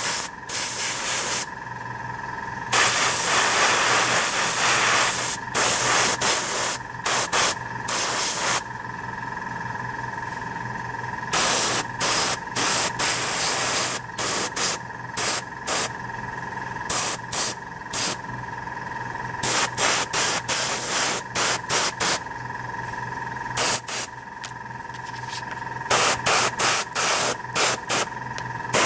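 A 0.2 mm dual-action gravity-feed airbrush spraying paint in on-and-off bursts of hiss: a few last a second or two, and many are quick taps of the trigger. A steady hum runs underneath.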